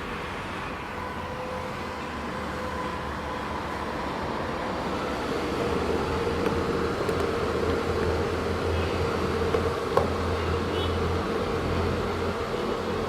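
Small computer fan of a homemade USB air cooler running steadily: a whir with a steady hum, growing a little louder from about four seconds in, with one sharp click about ten seconds in.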